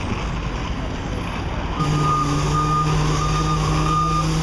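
A vehicle's reversing alarm starts beeping about two seconds in, roughly one and a half beeps a second over a steady low hum, against the noise of city street traffic.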